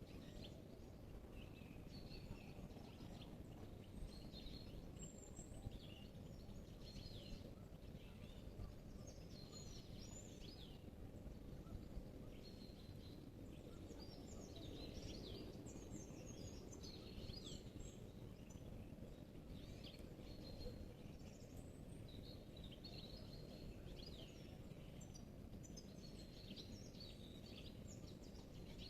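Several small songbirds singing and calling in a spring-morning forest, many short chirps and trills overlapping, faint, over a steady low background rumble.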